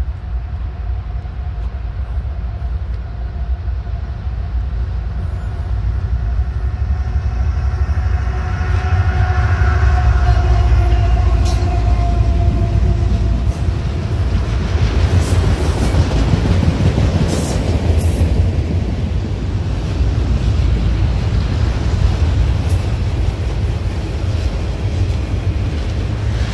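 A diesel-hauled freight train approaches and passes with a heavy low rumble, and a steady whine comes with the locomotives, fading once they are by. A long string of autorack cars then rolls past with loud wheel-on-rail noise and occasional sharp clanks.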